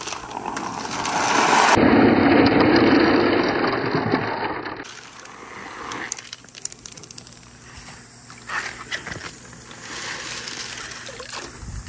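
Hundreds of glass marbles rolling together down a perforated board ramp and pouring into a water-filled clear tank: a dense clattering, splashing rush that builds, peaks and fades over the first five seconds. After that, scattered clicks and plops of single marbles following.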